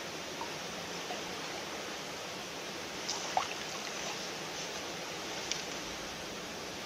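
Small stream flowing in a steady, even rush, with a few faint short sounds about three seconds in and once more near the end.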